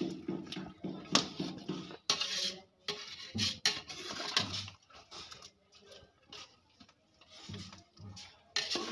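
Metal ladle stirring chicken curry in a large metal pot, scraping and knocking irregularly against the pot's sides and bottom.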